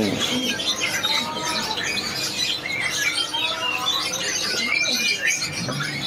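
Many caged songbirds chirping and calling over one another, mostly quick high chirps with a few lower, drawn-out whistles.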